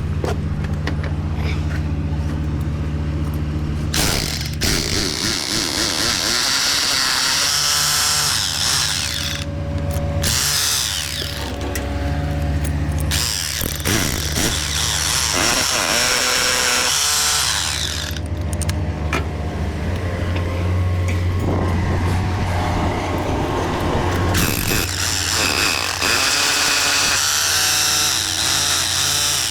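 Construction-site work noise: a steady low engine hum runs throughout under repeated spells of a power tool, each lasting a few seconds, with short breaks between them.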